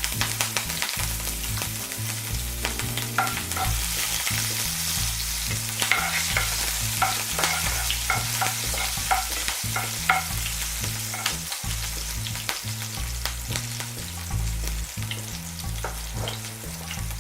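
Chopped green chillies and cumin seeds sizzling in hot oil in a pan, with a steady hiss and frequent short clicks of a spoon against the pan as they are stirred.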